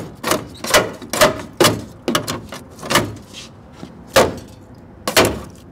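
Repeated sharp metallic clicks and clanks, roughly two a second, as the nutted-on license plate door at the rear of a 1960 Chevrolet Impala is worked loose.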